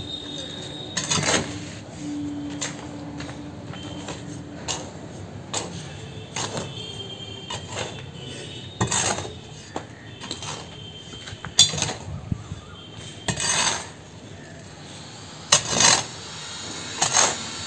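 A short-handled metal hoe chopping into and scraping through a heap of potting soil, its blade knocking and clinking on the concrete floor beneath, in irregular strokes with several sharper scrapes near the end.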